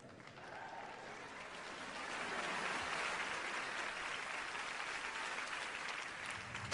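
Studio audience applauding, building over the first couple of seconds and then holding steady.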